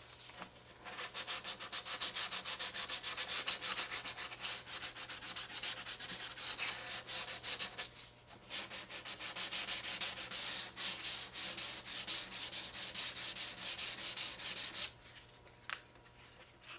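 Fine 320-grit sandpaper rubbed by hand along the glued seam of a plastic model saucer, in quick back-and-forth strokes of about four a second: light scuffing of the seam so putty will stick. It pauses briefly near the middle and stops shortly before the end.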